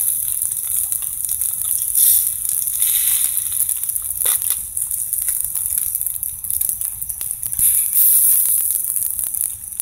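Fish sizzling on a grill: a steady high hiss scattered with many small crackles and pops.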